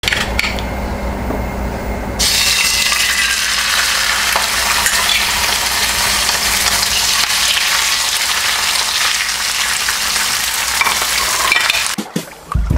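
Grouper fillets searing in hot oil in a stainless steel frying pan: a steady sizzle that turns louder and hissier about two seconds in, then cuts off abruptly near the end.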